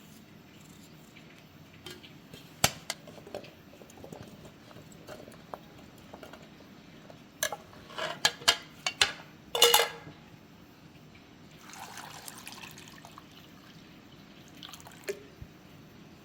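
Cooking handling sounds: a few sharp knocks and clinks of utensils or dishes, with a quick cluster of them about eight to ten seconds in, then a short splash of water.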